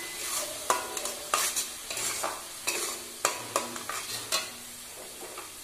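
Metal spatula stirring and scraping an onion and tomato-paste masala around a hot metal kadai, a scrape every half-second or so, over a low sizzle of frying.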